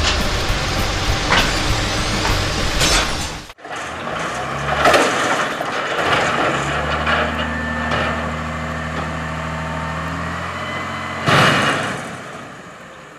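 Garbage truck sounds: an engine running, with an abrupt cut about three and a half seconds in, then a steady idle, and a loud hiss about a second before the end.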